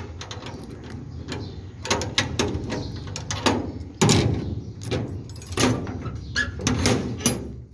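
Padlock and latch being worked on a sheet-metal gate, then the gate rattling and clanking as it is opened, with a series of metal knocks and a loud clank about four seconds in.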